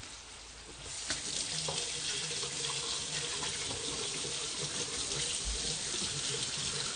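Kitchen faucet running into a sink: a steady rush of water that comes on about a second in and keeps running.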